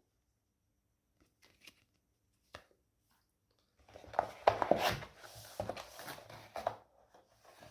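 Packaging and accessories being handled: a few faint ticks, then about four seconds in, a run of crinkling and clicking.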